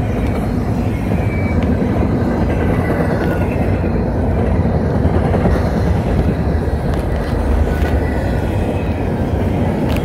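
Freight train cars rolling past close by: a steady rumble of steel wheels on rail as a string of empty intermodal well cars goes by.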